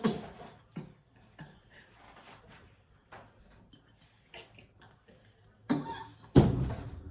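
Mostly quiet with a few faint small sounds, then a short loud human burp about six seconds in.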